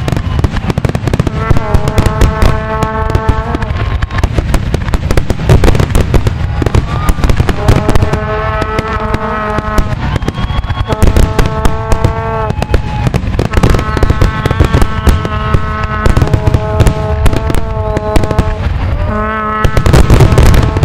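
Fireworks finale: aerial shells going off in rapid overlapping bursts with crackling, reaching a dense barrage about a second before the end. Pitched tones, each held for a second or two, sound again and again over the bursts.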